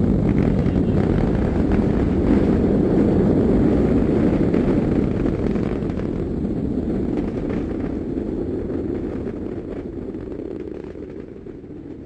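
Rocket launch: the engines make a loud, deep, steady rushing rumble that slowly fades away over the second half.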